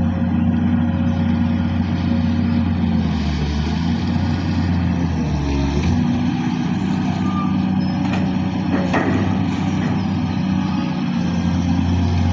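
Komatsu PC200LC hydraulic excavator's diesel engine running steadily. Its note sags and wavers about four to six seconds in, then settles back. Two short sharp knocks come near eight and nine seconds in.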